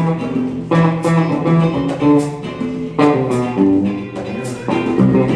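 Live jazz ensemble playing a funk groove: electric guitar and electric bass over drum kit, with a cymbal accent about once a second.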